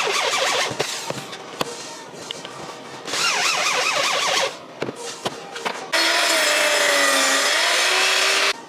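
A power tool working wood in three loud bursts, its pitch dipping and wavering under load; the last burst is the longest and steadiest. Music plays underneath.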